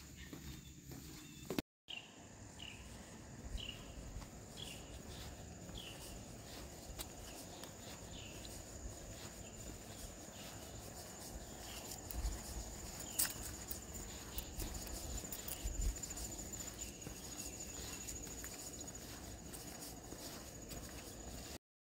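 Insects trilling in a steady high-pitched chorus, with a lower short chirp repeating about once a second through the first half.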